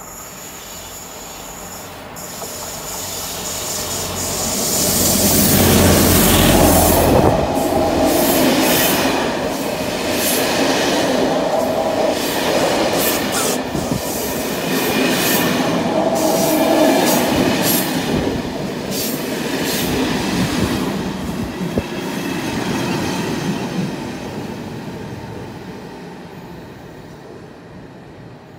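SNCB passenger train approaching and running past close by. It grows from a distant rumble to a loud, deep rumble a few seconds in, then goes on with a steady run of sharp wheel clacks over the rail joints as the coaches pass, and fades away near the end.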